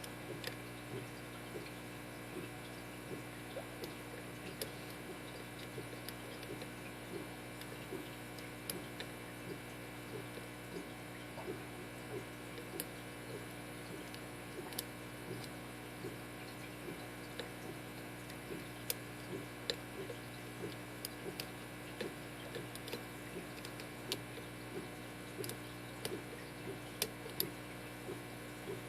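A lock pick working the pin tumblers of a Schlage SC1 five-pin deadbolt held in a vise, single-pin picking: soft irregular scrapes and small clicks, a few sharper ticks near the end, over a steady hum.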